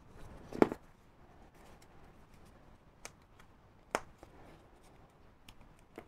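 Utility knife slicing through EVA foam on a cutting mat: a short crackling cut about half a second in, then quiet handling with two light clicks around three and four seconds in.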